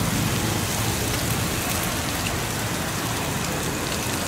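Masala frying in oil on a hot flat griddle (tawa), sizzling steadily.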